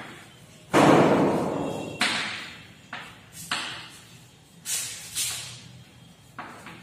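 Chalk writing on a chalkboard: a run of sharp chalk strikes, each followed by a short scratch as a letter is drawn. The first, about a second in, is the loudest and longest, and six or so shorter strokes follow.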